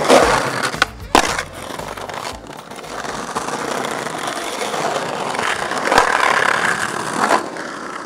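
Skateboard clacking twice about a second in, then its wheels rolling over brick paving, growing louder with a knock near the end before it cuts off.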